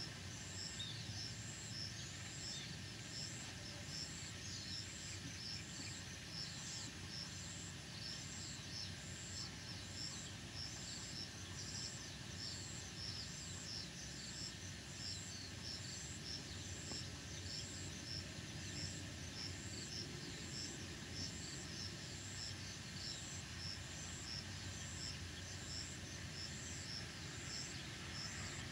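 Countryside insect chorus at dusk: cicadas and other insects calling steadily, with a high chirp repeating evenly and some scattered bird calls.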